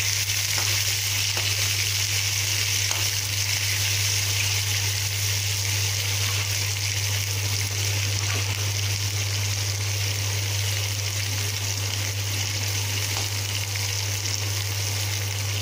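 Sliced onions, garlic and green chillies sizzling in hot oil in a metal kadai, with a few light scrapes of a slotted ladle stirring them. A steady low hum runs underneath.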